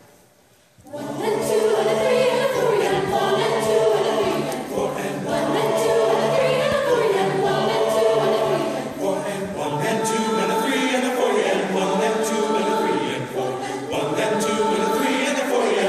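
Mixed choir of men's and women's voices singing together in sustained chords. After a pause of under a second at the start, the full choir comes back in and sings on steadily.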